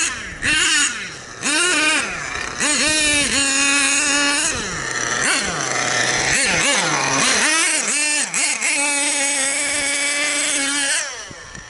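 Small nitro glow engine of an MGT 8.0 radio-controlled monster truck revving up and down under throttle. Twice it is held at a high steady pitch for a second or two. Near the end it falls away.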